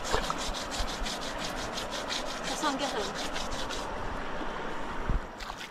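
Leaves scrubbed briskly on wet skin as a soap substitute, in rapid even strokes of about six a second that stop about four seconds in. A thump follows near the end.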